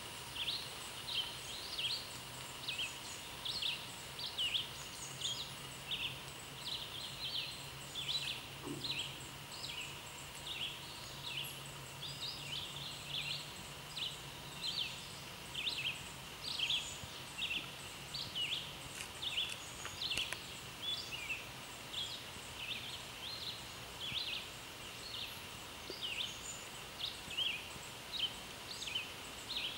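Woodland ambience of small animals chirping: short high chirps repeat about two or three times a second without a break, over a steady faint high tone and a low hum.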